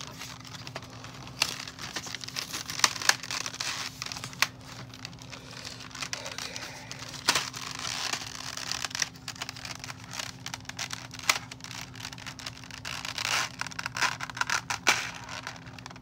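Thin clear plastic packaging and cardboard crinkling and crackling as a toy accessory tray is worked loose from its box insert by hand, with irregular sharp clicks and snaps.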